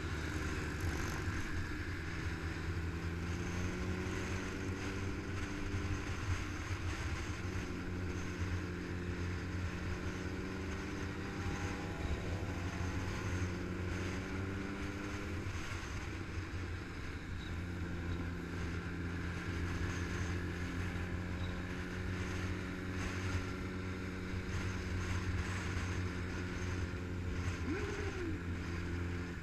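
Motorcycle engine running at road speed under heavy wind rumble on the microphone, the engine note shifting in pitch a few times as the throttle and gears change.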